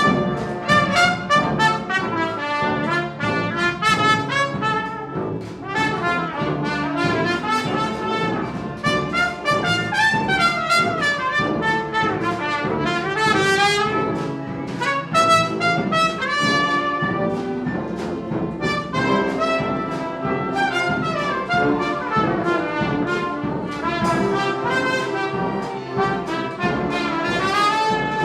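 Instrumental ensemble playing a piece, several parts at once in many short, quickly changing notes.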